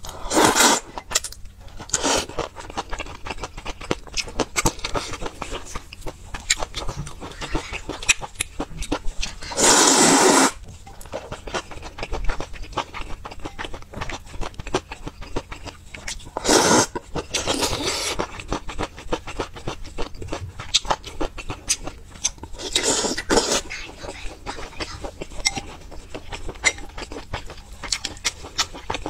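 Close-miked eating of noodle soup. Several loud slurps of noodles, each about a second long, come between steady wet chewing and chopsticks clicking against a stone bowl.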